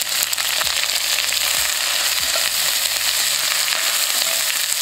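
Sliced onions sizzling steadily in hot oil in a cast-iron pot, being browned, with a utensil stirring them near the end.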